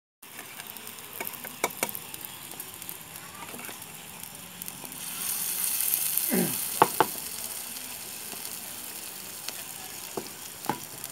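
Aloo tikki sizzling on a hot flat iron tawa, a steady hiss that swells louder for a second or two around the middle. Sharp metallic clicks and knocks come now and then, the loudest a pair just before the middle.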